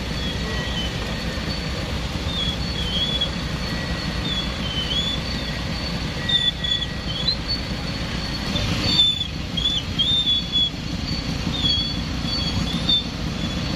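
Low, steady rumble of car and motorcycle engines idling and creeping in a traffic jam, with short high wavering whistle-like tones repeating about once a second over it.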